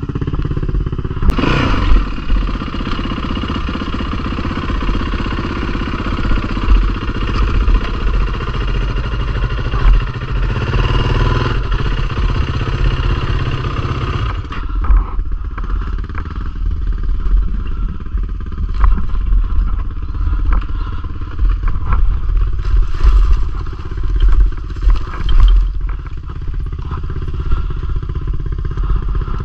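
Yamaha WR four-stroke single-cylinder dirt bike running hard on a rough trail, heard from the bike itself. It eases off about halfway through, with scattered clatter throughout.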